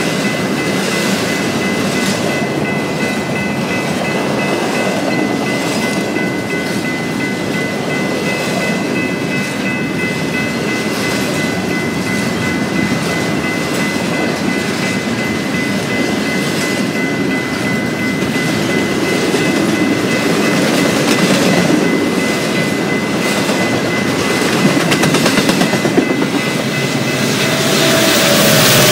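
Freight train cars rolling past, wheels clicking over the rail joints in a steady rhythm. A steady high-pitched tone runs over the rolling noise and stops near the end.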